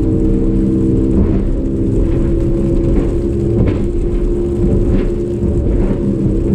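150 hp Evinrude E-Tec two-stroke outboard running steadily at race speed, with brief knocks every second or so as the hull hits the waves.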